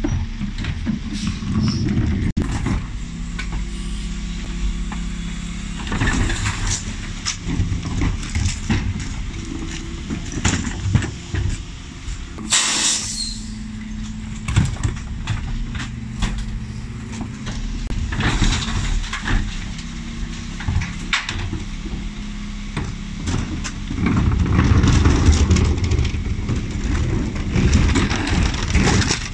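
Dennis Elite 6 refuse truck running with a steady low hum while plastic wheelie bins are rolled up and emptied by its Terberg OmniDEL bin lift, with repeated knocks and clatters of bins and lids. A short sharp hiss of air about twelve seconds in, and a louder low rumble from the lift and truck in the last few seconds.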